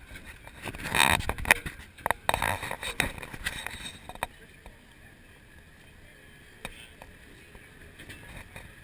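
Boardwalk tram car rolling over the wooden planks. It clatters and knocks loudly for about three seconds near the start, then settles into a quieter rumble with an occasional knock.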